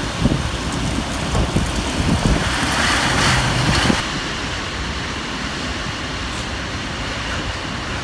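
Heavy rain and strong gusting wind, with wind buffeting the microphone. The hiss of the rain swells for a second or so around three seconds in, then drops suddenly about four seconds in to a steadier, quieter rain hiss.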